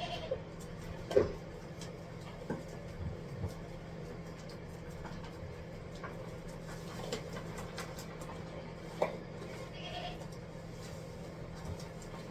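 Goats bleating briefly, once near the start and again about ten seconds in, with a few sharp knocks, the loudest about a second in, over a steady low hum.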